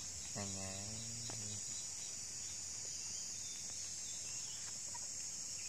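Steady high-pitched chorus of crickets. About half a second in, a low hummed voice holds one pitch for about a second.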